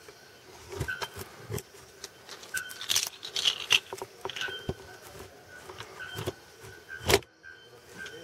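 Bare-throated bellbird (araponga) calling: sharp, metallic hammer-on-anvil strokes repeated every second or two, each with a brief ringing tone. A louder sharp crack about seven seconds in.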